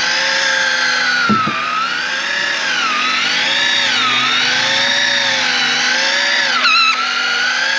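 Daiwa Tanacom 1000 electric fishing reel's motor whining as it winds line in at full speed. Its pitch dips and rises again about every second and a half as the load on the line changes.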